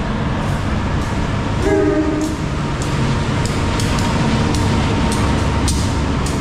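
A KAI diesel-electric locomotive and its passenger cars rolling past along the platform: a steady rumble with repeated sharp clicks from the wheels on the rails. A short horn blast sounds about two seconds in.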